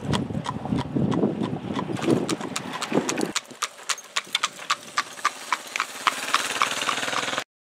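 Horse hooves clip-clopping on an asphalt road, about four strikes a second, from horse-drawn Amish buggies passing. A low rumble drops out abruptly about three seconds in, and the hoofbeats stop suddenly near the end.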